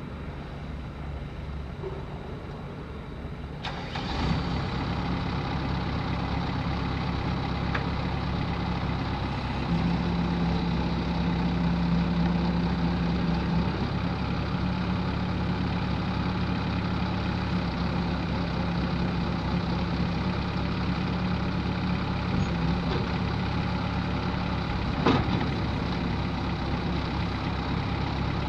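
Bobcat S185 skid-steer loader's diesel engine running. It is quieter for the first few seconds, then gets louder about four seconds in and settles into a steady run, with a slight rise in pitch between about ten and fourteen seconds and a single sharp clank near the end.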